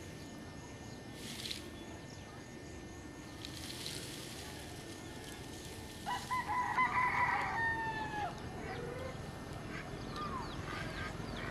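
A rooster crowing once, about six seconds in: a pitched call lasting about two seconds that ends in a falling note.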